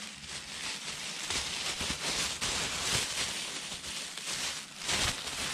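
Dry fallen leaves rustling and crackling irregularly, louder for a moment about five seconds in.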